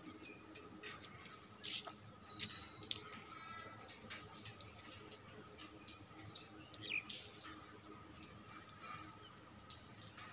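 Water dripping irregularly after rain, a scatter of small faint drips.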